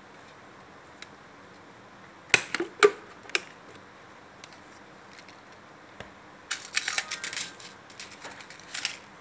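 Hard plastic underwater camera housing being opened and handled: a few sharp clicks and snaps about two seconds in as the latch releases and the two halves come apart, then a run of quick plastic clicks and rattles near the end.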